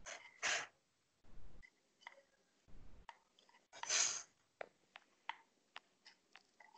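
Faint handling sounds of painting a pot with a brush: scattered light clicks and taps and short brushing rustles, the loudest rustle about four seconds in.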